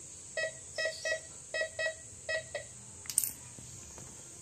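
MD 4030 metal detector beeping as an aluminium 500-rupiah coin passes over its search coil: about seven short beeps, mostly in quick pairs, over the first two and a half seconds. A single sharp click follows about three seconds in.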